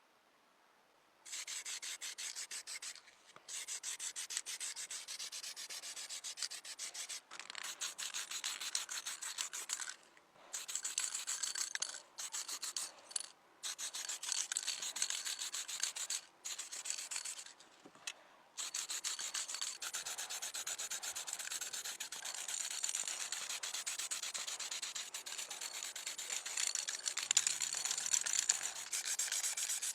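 Sanding or abrasive rubbing on the small metal body of a diecast toy car, in stretches of a few seconds with short pauses between them, then continuous through the second half.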